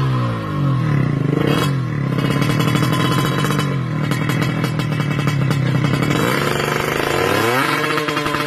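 Kawasaki Ninja 155cc tuned two-stroke drag bike engine settling from a rev to a rough idle. About seven and a half seconds in it is blipped sharply up and held at higher revs.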